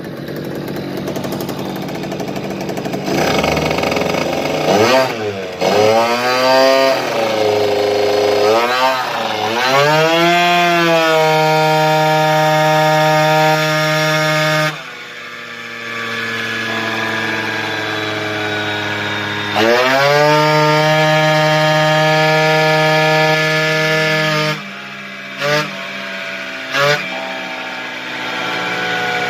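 Yamaha Jog 50cc two-stroke scooter engine running on a dyno's rollers. It revs up and down in several quick rising-and-falling blips, then is held at steady high revs for a few seconds, drops off suddenly, is held high again, and ends with two short blips.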